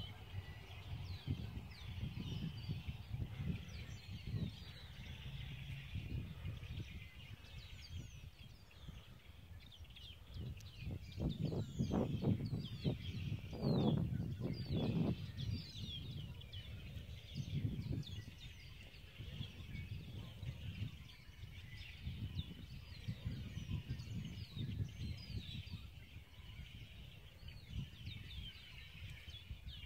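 Small songbirds chirping throughout, many short, quick high chirps, over a low rumbling background noise that swells louder around the middle.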